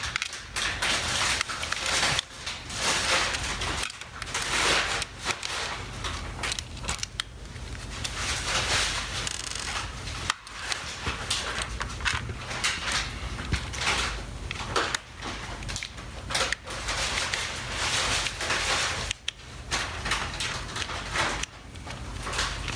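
Irregular scraping, rubbing and clicking as the plastic body of a Panasonic ES-RL21 shaver is handled and its small screws are undone with a screwdriver, over a steady low hum.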